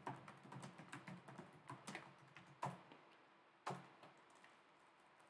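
Faint typing on a laptop keyboard: a quick run of soft key clicks with a few louder taps, stopping a little over a second before the end.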